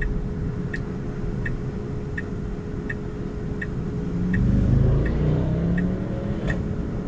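Car turn-signal indicator ticking steadily inside the cabin, about three ticks every two seconds, while the car sits stopped. About four seconds in, a vehicle passes across in front with its engine note rising, loudest around the five-second mark.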